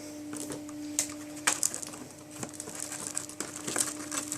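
Irregular plastic clicks, knocks and rustling from handling and fitting the hose onto an upright vacuum cleaner, over a steady low hum.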